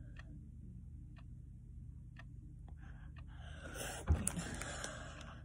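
Faint ticks about once a second in a quiet room, then about two seconds of rustling handling noise as the recording phone is moved, with one sharp knock about four seconds in, the loudest sound.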